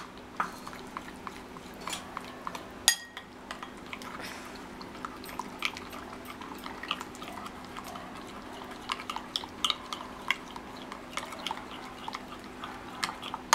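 A spoon stirring a thin flour batter in a glass bowl, with irregular light clicks and taps of the spoon against the glass and one sharper knock about three seconds in. A steady low hum runs underneath.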